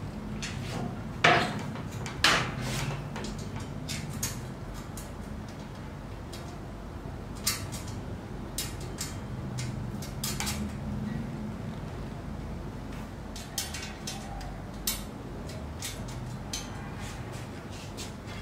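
Metal parts of a CNC router's leg stand knocking and clinking as they are handled and fitted by hand: two sharp clanks about a second apart near the start, then lighter clicks scattered through.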